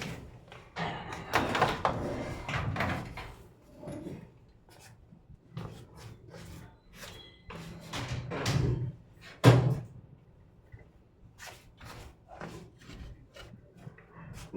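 Irregular clunks, clicks and scraping from parts being handled during a TV repair, with one loud thump about nine and a half seconds in.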